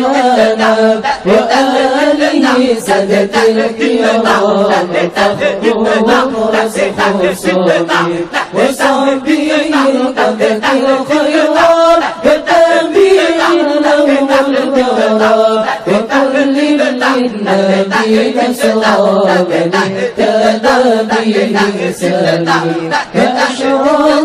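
A congregation chanting Arabic dzikir together in a slow melody that rises and falls without a break.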